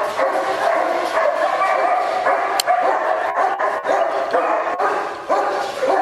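Several kennelled dogs barking and whining at once, a continuous overlapping chorus of calls.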